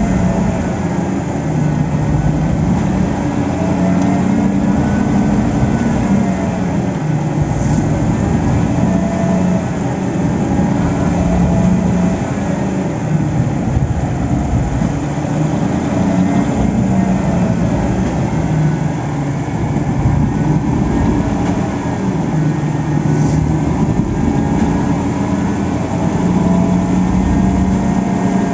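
Heavy engine of piling-site construction machinery running continuously under load, its pitch rising and falling in slow waves every few seconds.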